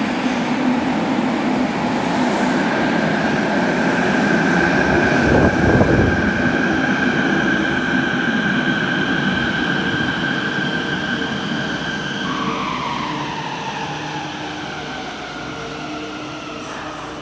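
Fukuoka City Subway 3000 series train arriving and braking in the station: a rolling rumble with a steady high whine, then, from about two-thirds of the way through, the motor whine falls in pitch and the noise fades as the train slows toward a stop.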